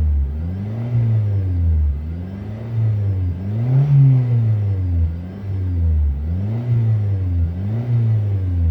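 Car engine revved in quick blips about once a second, each rise and fall in pitch repeating. A faint high whistle rises and falls with the revs: the whistle and squeak the owner is recording.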